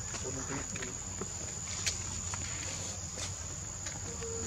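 Steady high-pitched insect drone, with a few faint short clicks and rustles.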